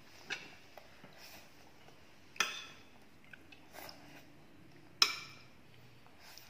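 Metal spoon clinking against ceramic plates: three sharp clinks about two seconds apart, each with a short ring, and a few fainter ticks between.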